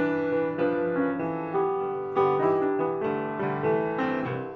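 Piano theme music, a melody of distinct notes played at a moderate pace.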